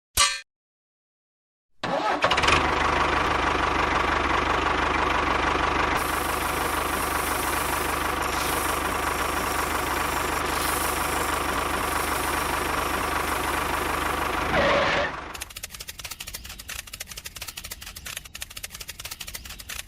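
A small motor starts about two seconds in, runs steadily for around thirteen seconds and then stops, leaving light clicking and rattling.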